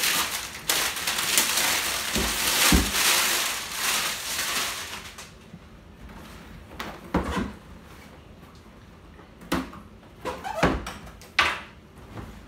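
Cellophane shrink-wrap crinkling and tearing as it is pulled off a cardboard box for the first five seconds or so. Then a few short knocks and thumps as the cardboard box is handled and shifted on a wooden table.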